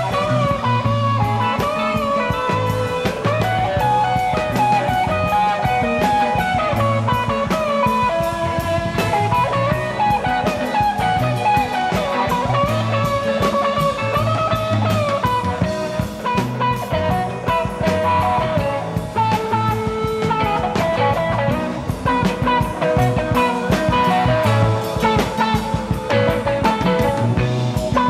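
Background rock music: a guitar melody over bass and a steady drum beat.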